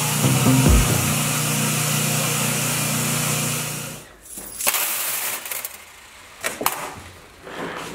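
A steady hiss with a low hum for about four seconds. It then gives way to small metal rings clattering onto a stainless steel tray in a few short bursts of jingling clicks.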